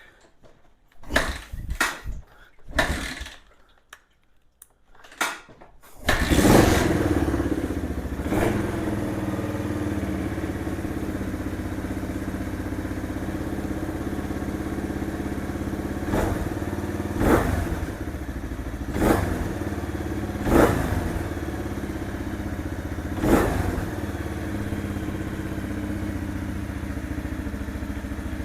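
1978 Kawasaki KL250's single-cylinder four-stroke engine, cold, kicked over a few times before it catches about six seconds in and settles into a steady idle. The throttle is blipped briefly about six times while it idles.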